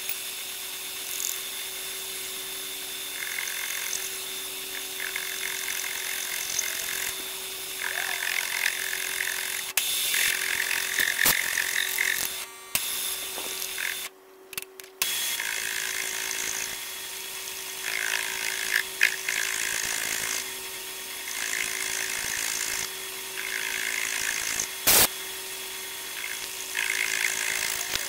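Milling machine spindle running with a steady hum while its cutter mills an aluminium engine mount. The cutting noise comes and goes in stretches of one to two seconds as the cutter is fed through the part, and there is one sharp click near the end.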